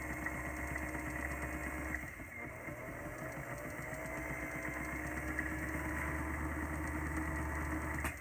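Small electric motor of a fishing rod lathe running steadily as it spins the rod during wet sanding of the thread wraps. It dips briefly about two seconds in and cuts off suddenly near the end as it is switched off.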